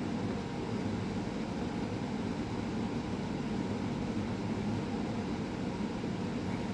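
Steady low droning background noise with no distinct events, like a room's air conditioner or fan.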